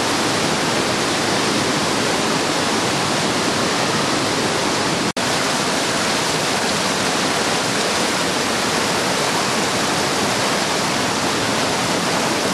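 Water running steadily into and over travertine pools in a cave, a loud, even rushing hiss. It cuts out for a split second about five seconds in.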